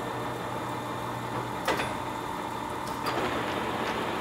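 Poreba heavy-duty engine lathe running with its large four-jaw chuck spinning, a steady mechanical hum. A sharp click about a second and a half in and another, smaller one about three seconds in, as the headstock controls are worked.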